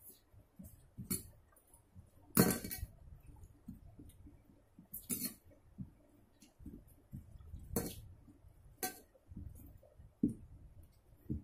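Steel dinner plate clinking under a hand mixing and scooping rice: six or seven scattered sharp clinks, the loudest about two and a half seconds in.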